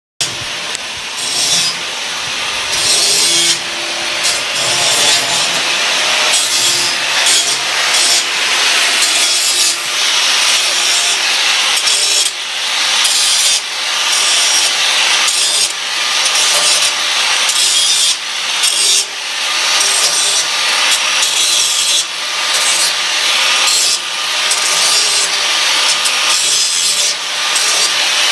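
Rhythmic back-and-forth scraping strokes of a hand tool worked against a part, about one stroke every second or so.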